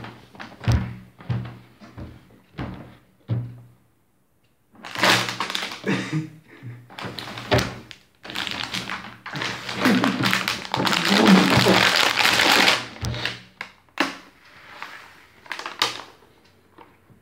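Knocks and thumps on a wooden tabletop close to the phone, then a long stretch of loud crunching and rustling as lettuce is munched straight off the table, face down, in imitation of an animal eating.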